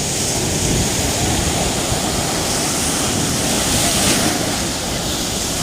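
Stormy sea surf: waves breaking and washing in a steady, loud roar of water, with a brighter hiss as one wave breaks about three to four seconds in.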